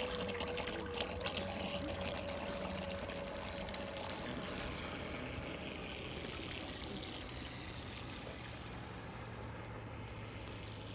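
Brushless electric motor of a Navicraft Adrenaline RC offshore boat running on 8S, whining at a steady pitch as the boat moves away; the whine fades out after about four seconds. Water lapping and splashing throughout.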